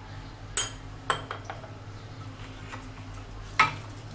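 Kitchen utensils clinking against a bowl and containers, a few separate sharp clinks with the loudest near the end, as fish pieces are coated with salt and turmeric.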